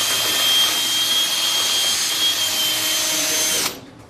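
A power drill drives a Tailwell2 tail-trimmer attachment and its oscillating cutter blade. It runs at speed with a steady high whine, then stops abruptly near the end.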